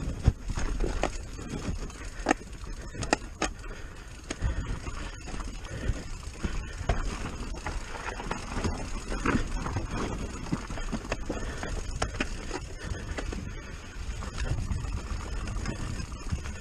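Commencal Clash mountain bike riding fast down a dry, rocky dirt trail: tyres crunching over loose dirt and stones, with frequent knocks and rattles from the bike over bumps and a steady low rumble.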